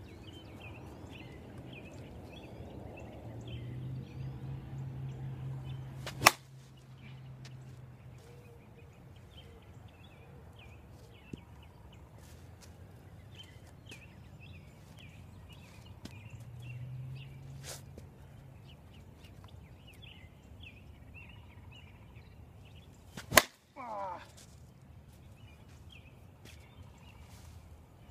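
Two sharp cracks of the Avarice G2 softball bat hitting a softball off a batting tee, about seventeen seconds apart.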